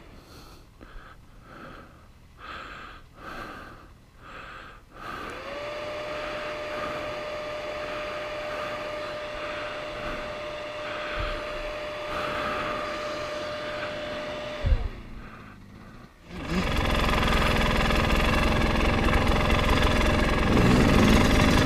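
Dirt bike engine: faint uneven pulses at first, then a steady engine note held for about ten seconds that rises at its start and falls away at its end. About sixteen seconds in, the rider's own 300 dirt bike engine comes in loud and runs steadily as the bike rides off.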